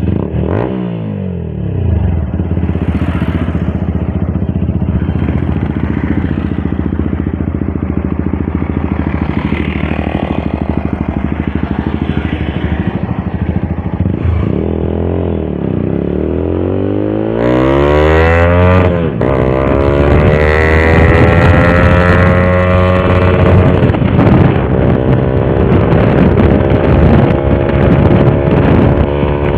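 Motorcycle engine and exhaust revving: the pitch drops and climbs again about a second in and around the middle. It gets louder from about two-thirds of the way through, with the pitch rising and staying high as the bike pulls away.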